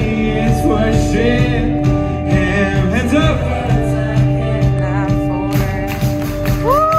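Live contemporary worship band playing: amplified lead vocals singing a melody over drums, bass and electric guitar, heard from the audience in a large hall. Near the end a singer slides up into a long held note.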